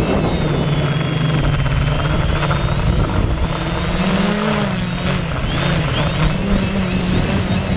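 Quadcopter drone's propellers and motors whirring in flight, a steady hum whose pitch wavers up and down as the motors change speed, with a constant high whine above it.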